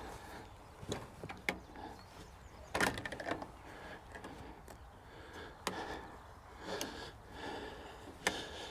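Irregular sharp knocks and clacks on wood, about seven spread out with a quick cluster about three seconds in, as fencing is worked on a wooden post without a hammer.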